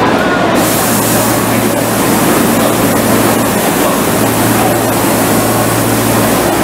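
Steady loud hiss and rumble of a Kobe Municipal Subway 6000-series train standing at an underground platform, with a low hum throughout. A brighter hiss comes in about half a second in.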